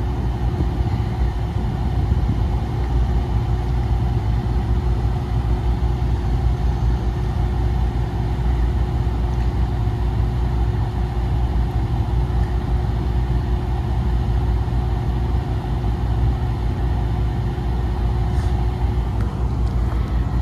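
Carrier rooftop air-conditioning unit running steadily in cooling mode: a constant low hum with one steady tone held throughout.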